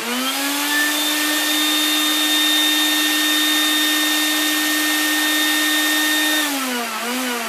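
Wet-and-dry vac motor running in blower mode, blowing air through its hose into a 16-inch latex balloon: it spins up within about half a second to a steady whine with rushing air. About six and a half seconds in, the pitch drops and wavers as the motor winds down.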